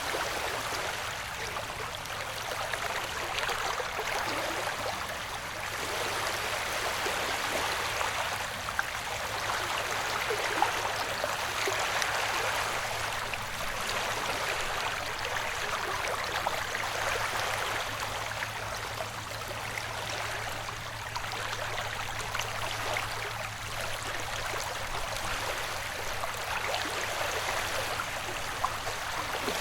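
Ocean wave ambience track: a continuous rushing wash of surf that swells and eases gently, with a faint steady low hum underneath.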